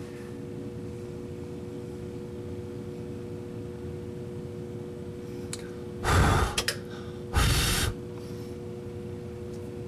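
Steady hum of an EVAP smoke machine running, with two loud breaths close to the microphone, about six and seven and a half seconds in.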